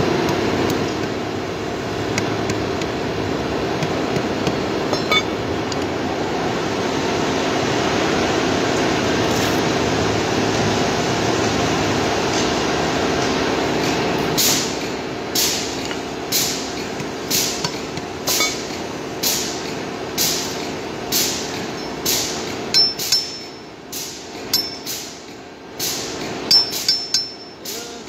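A hand hammer striking a steel punch held against a metal concrete-pump part: sharp metal-on-metal blows starting about halfway through, about one a second and coming faster near the end, some with a short metallic ring. Before the blows start, a steady machinery hum fills the first half.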